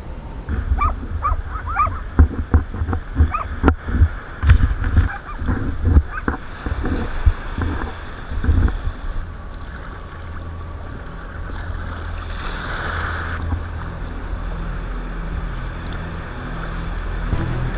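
Water splashing and slapping against a sea kayak's hull and paddle in choppy sea and surf, heard close up through a deck-mounted action camera. There are irregular splashes and thumps through the first half, then a steadier wash of water.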